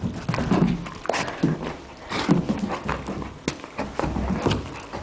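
Basset hound growling in play, in a string of short low grunts and growls as it grabs and tugs at a plush toy, with a few sharp knocks in between.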